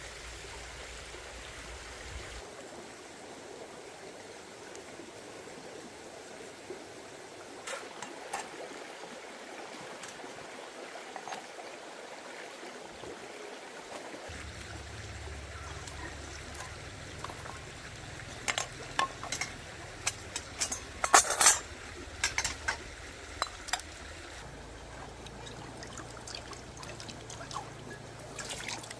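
Stream water running steadily. A cluster of sharp clicks and knocks comes in the second half, loudest about three-quarters through.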